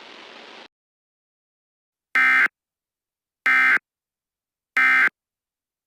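Three short bursts of Emergency Alert System digital data tones, each about a third of a second long and about a second and a quarter apart: the end-of-message code that closes an EAS warning. Before them a faint steady static hiss cuts off just under a second in.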